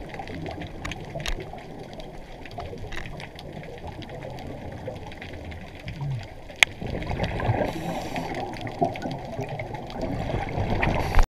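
Underwater sound on a scuba dive: a muffled rush and bubbling of water with scattered sharp clicks, growing louder about seven seconds in. It cuts off abruptly at the end.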